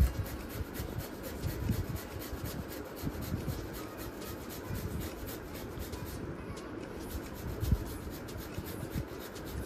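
Peeled cucumber being grated on a flat metal hand grater: repeated wet rasping strokes into a ceramic bowl.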